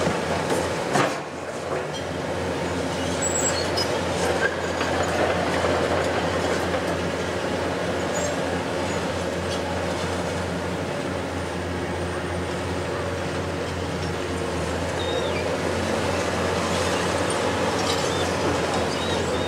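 Heavy diesel engine of a Hitachi 870 XXL long-reach demolition excavator running steadily under load. A sharp knock about a second in, and brief high metallic squeaks now and then, over the engine.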